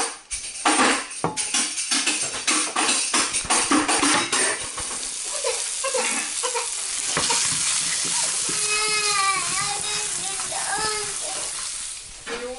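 Hot dog sausages frying in butter in a frying pan: sharp crackling and spattering for the first few seconds, then a steady sizzle. A young child's high voice calls out over it about two-thirds of the way through.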